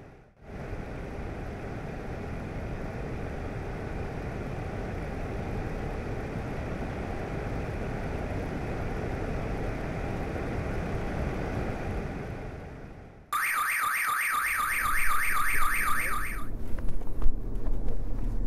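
Steady hum of street traffic. About thirteen seconds in, after a short drop, a fast-warbling electronic siren sounds for about three seconds and stops, with a low traffic rumble under it.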